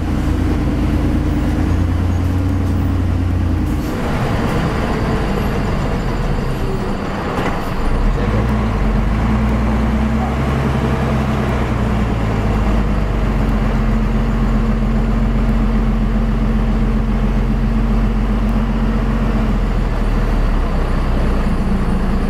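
Fuso self-loader truck's diesel engine running on the road, heard from inside the cab. Its steady note breaks off about four seconds in, with a short noisy burst a few seconds later, then settles into a new steady note from about eight seconds on.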